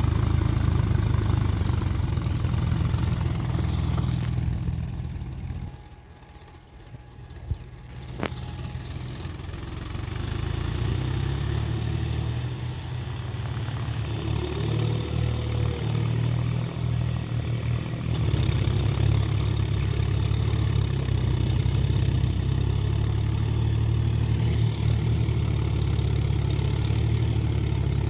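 A John Deere tractor's diesel engine running steadily under load as it drags an implement on cage wheels through a wet, muddy field. The sound drops away for about two seconds roughly six seconds in, with a single click, then the engine comes back.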